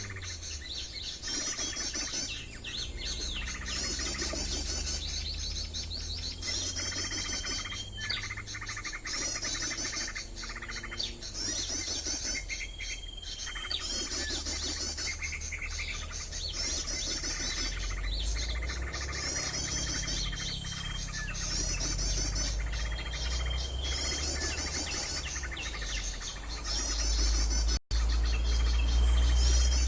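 Small birds' high chirping trills, one phrase about every second and a half, with a few short whistles between them. A low rumble swells in the second half, and the sound cuts out for an instant near the end.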